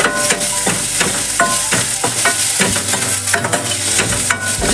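Steel ladle stirring and scraping chopped onion, garlic and ginger in a stainless steel kadhai, with a light sizzle of frying in a little oil and frequent clinks and scrapes of metal on metal.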